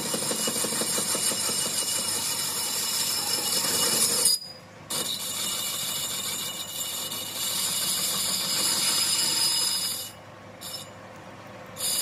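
Metal lathe turning a truck wheel hub as the cutting tool shears off metal chips: a steady scraping hiss with a thin high whine. It drops out briefly about four seconds in and again near the end.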